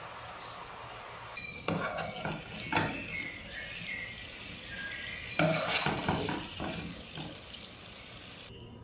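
Meatballs sizzling in hot olive oil in a pot, then a spatula scraping the pot and knocking against a plate as the browned meatballs are lifted out, in two bursts of clatter, about two seconds in and again just past halfway.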